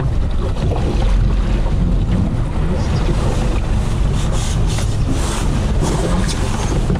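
Strong wind buffeting the microphone aboard a small fishing boat on rough water, with waves splashing around the hull.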